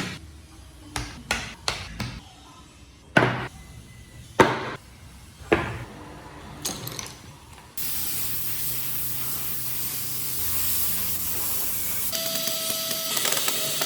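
A run of sharp knocks and taps, about eight of them, irregularly spaced. About eight seconds in, a steady hiss like a spray or an air jet starts and runs on.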